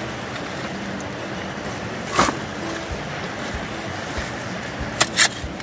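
Steady rush of river water, with a small shovel scraping into sand and gravel about two seconds in and twice near the end.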